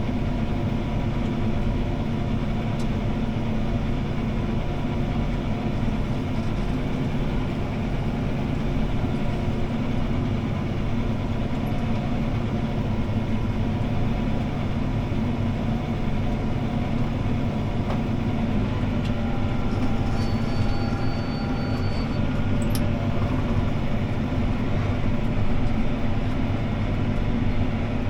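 CLAAS ARION 650 tractor engine running steadily under load while pulling a disc harrow, heard inside the cab as an even, loud drone.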